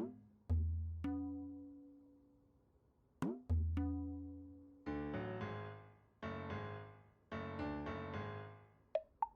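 Background music: light struck and plucked notes and chords that each ring and fade away.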